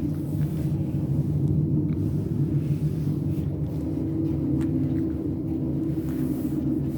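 Cabin of a 2002 FI-VF3 high-speed elevator (180 m/min) travelling through its shaft: a steady low rumble with a constant hum.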